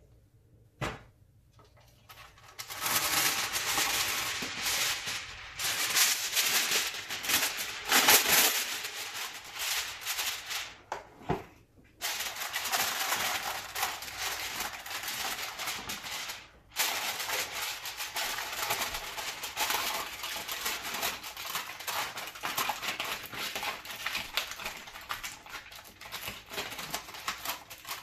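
Aluminium foil crinkling and crackling as it is pulled over a glass baking dish and pressed and crimped down around the edges. It starts a couple of seconds in and goes on in stretches, with two brief pauses.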